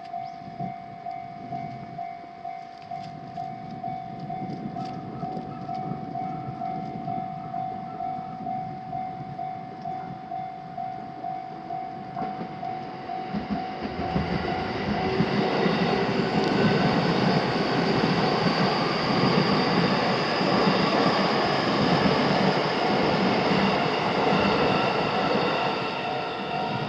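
Japanese railroad crossing's warning bell ringing in a steady pulsing pattern. About halfway through, an electric train arrives and passes over the crossing: a loud rush of wheels on rail with several high motor whines, while the bell keeps ringing.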